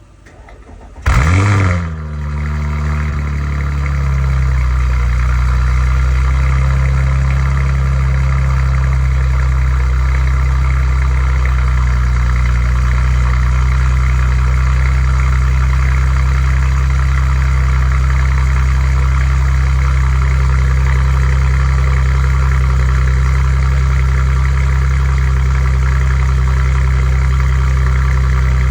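Audi RS5 B9's 2.9-litre twin-turbo V6 cold-starting about a second in, with a brief rev flare that falls back and settles into a steady idle. The owner says a metallic valvetrain ticking on cold start comes from a failed rocker arm.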